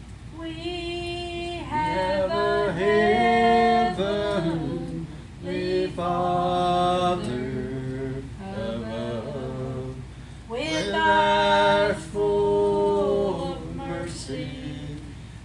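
A woman singing a slow gospel hymn, holding long notes between short breaths.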